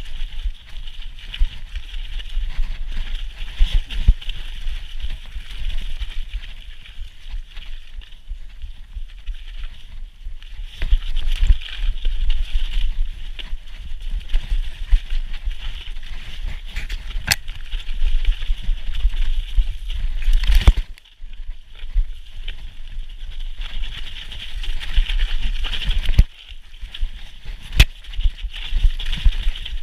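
Commencal Meta HT hardtail mountain bike running fast down a rough, wet dirt trail: a steady rumble of wind buffeting the camera microphone and tyres on the ground, with sharp knocks and rattles from the frame and chain over bumps now and then.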